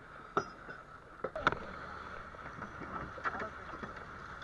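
Trawl fishing boat under way, its engine running with a steady drone, broken by three sharp knocks of gear on the wooden deck, the loudest about a second and a half in.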